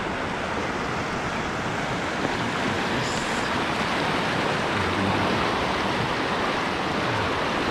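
Fast-flowing river floodwater rushing and churning against the edge of a low concrete crossing: a steady, even rushing noise.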